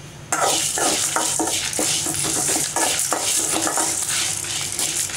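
A spoon stirring dry-roasting lentils, dried red chillies and whole spices in a metal kadai, with no oil: the grains and chillies scrape and rattle against the pan in quick repeated strokes, starting about a third of a second in.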